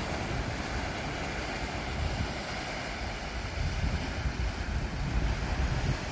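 Wind buffeting the microphone: an uneven low rumble over a steady rushing noise.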